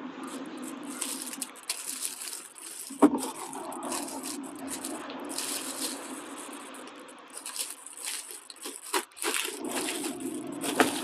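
Clear plastic bags crinkling and plastic bottles being handled as drinks are packed into bags, with a sharp knock about three seconds in, over a steady low drone.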